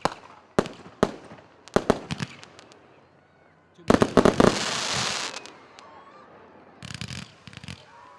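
Fireworks going off: several sharp single bangs in the first two seconds, then a rapid burst of cracks with a hissing crackle about four seconds in, and a shorter crackling cluster near the end.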